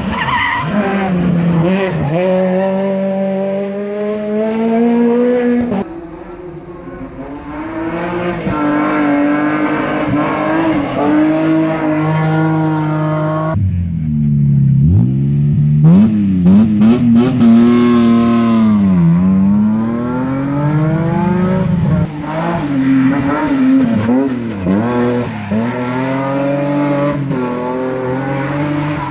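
Rally car engines revving hard and changing gear, in several clips joined by abrupt cuts. About halfway through, a BMW E30 3 Series rally car revs at the start line and pulls away, its pitch climbing and then dropping with the gear changes.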